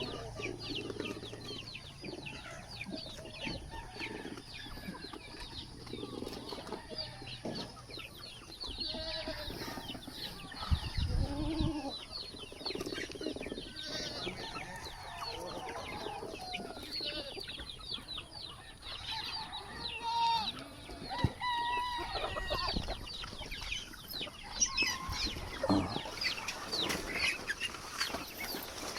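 Chickens clucking repeatedly, with other farmyard animal calls mixed in.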